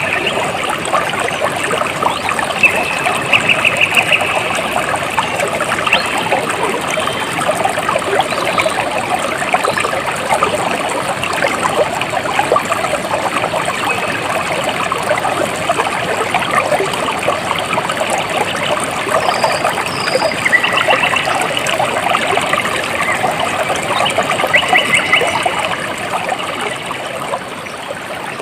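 A small stream trickling and babbling steadily. Short, high, rapid trills come through a few times.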